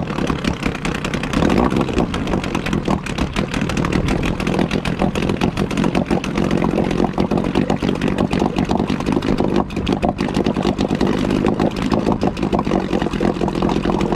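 Mariner 8 hp outboard motor (Yamaha-built) running steadily on half choke, just after its first start after long storage.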